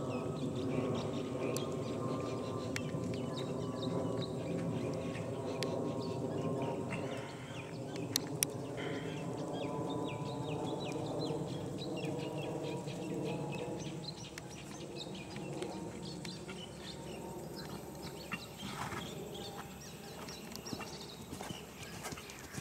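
A horse trotting on a sand arena, its hooves thudding in a steady rhythm. Under it runs a steady drone of several tones that slowly sinks in pitch and fades out about two-thirds of the way through.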